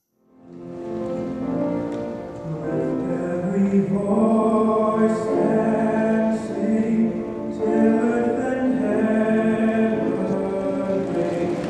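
Choir singing held chords, fading in from silence in the first second.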